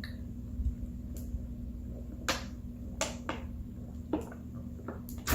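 A handful of scattered sharp clicks and ticks, about eight in five seconds, over a steady low hum.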